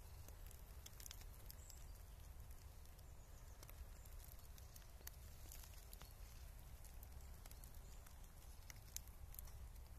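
Near silence: a faint low rumble with scattered faint ticks and crackles.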